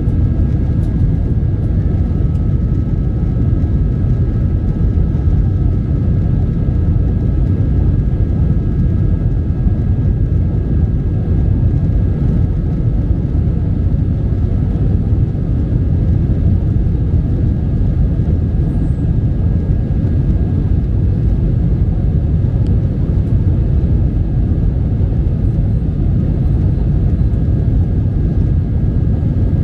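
Steady cabin noise inside an Airbus A320 airliner: an even, low rumble from the engines with two faint steady high whines over it.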